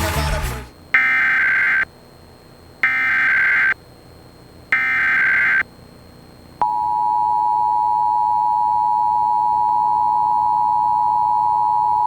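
Emergency Alert System test: three short modem-like bursts of SAME header data tones, each just under a second, then, about six and a half seconds in, the steady two-tone EAS attention signal, which carries on. A brief noisy sound ends right at the start.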